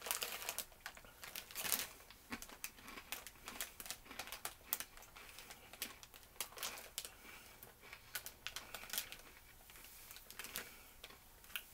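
Plastic snack bag of Combos crinkling as it is handled, a run of irregular short crackles and clicks.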